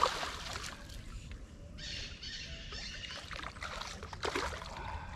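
Water sloshing at the river's edge, with a bird calling for a second or two about two seconds in.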